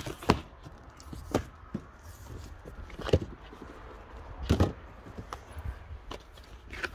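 A cardboard box being opened by hand: flaps folded back and a paper manual handled, with a few sharp knocks and scuffs of cardboard among quieter rustling.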